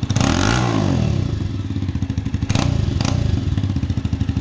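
Jawa 42 single-cylinder engine running on a modified exhaust, steady and pulsing, with a quick blip of the throttle about half a second in. Two sharp clicks come a little past halfway.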